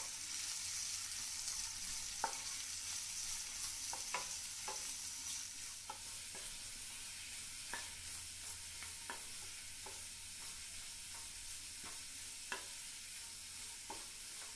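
Sliced onions frying quietly in oil in a pan, a steady soft sizzle, while a wooden spatula stirs them with about a dozen light taps and scrapes against the pan.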